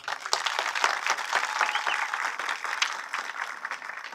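Audience applauding, dense clapping that tapers off toward the end.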